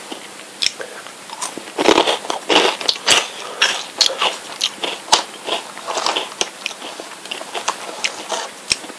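Close-up crunching and chewing of Jagabee potato sticks: a string of crisp cracks, thickest in the first half.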